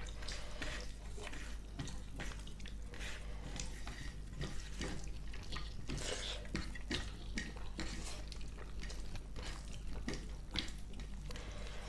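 Close-up wet eating sounds of chicken curry and rice: chewing and lip smacks, heard as irregular small clicks and squelches a few times a second.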